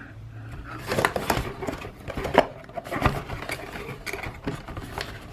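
Packaging being handled and pulled open by hand: irregular crinkling, rustling and small clicks.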